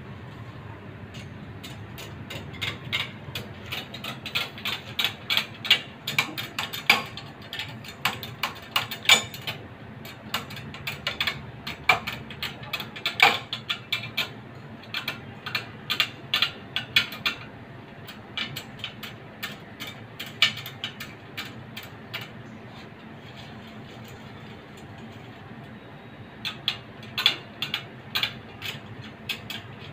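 Spokes of a motorcycle spoked wheel being tensioned and trued: rapid, irregular metallic clicking in runs, with a lull of a few seconds past the middle before it starts again near the end.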